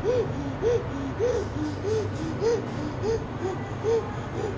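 A girl making short, repeated whimpering moans, about two a second, in a staged fit, with a low steady hum underneath.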